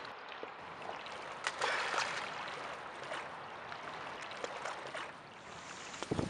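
Lake water lapping at the shore: a soft, steady wash broken by small, irregular splashes.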